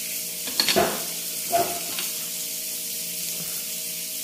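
Food sizzling on a grill pan over a portable gas stove, a steady hiss, with a few sharp clicks of metal tongs about a second in and again around a second and a half.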